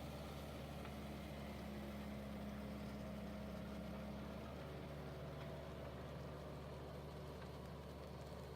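Tractor engine running steadily with the mounted seeder, its note stepping down slightly about four and a half seconds in.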